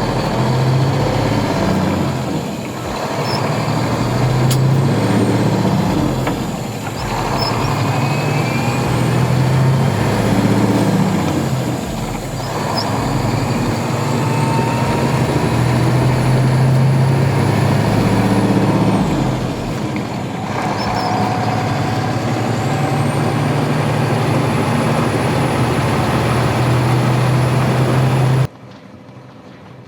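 Radio-controlled Scania R730 truck with a sound module playing a V8 engine note that rises and falls as it drives. Short air-brake hisses come every few seconds, and a faint high whine glides up and down. The sound stops abruptly near the end.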